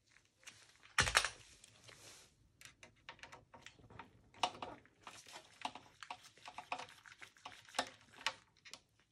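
Small clicks and taps of a precision screwdriver and fingers working the M.2 SSD and its screw inside a desktop PC case, with one sharper knock about a second in.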